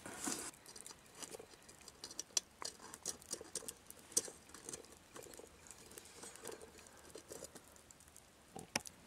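Wood campfire embers crackling, with faint, irregular small pops and snaps.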